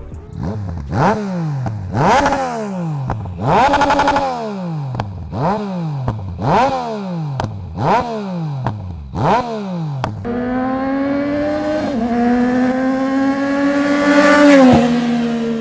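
Yamaha Tracer 900's three-cylinder engine breathing through an Akrapovic titanium full exhaust, revved in about seven sharp throttle blips, each rising fast and falling back. It then runs longer and steadier, its pitch slowly climbing with a short dip partway through and a sudden drop near the end.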